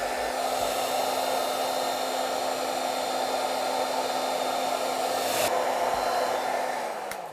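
Handheld hair dryer blowing steadily to dry water-based acrylic paint on a wooden lure. Its hiss dulls abruptly about five and a half seconds in, and near the end it is switched off and the motor winds down.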